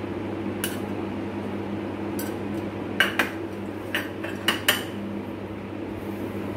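A steel spoon clinking and scraping against a steel bowl as chopped onion is tipped out of it: several sharp clinks, bunched in the middle. A steady low hum runs underneath.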